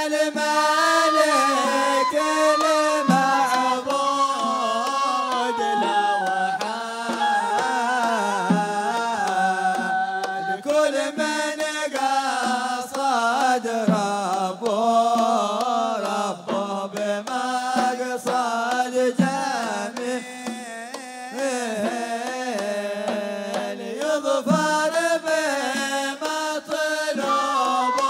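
Hadhrami zarbadi music from a live band: a wavering, ornamented melody over a steady beat of hand drums and a large double-headed drum.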